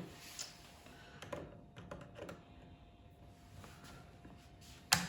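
Light scattered clicks and taps of a drill bit and its chuck being handled and refitted in an electric drill bit sharpener, with one sharper click near the end.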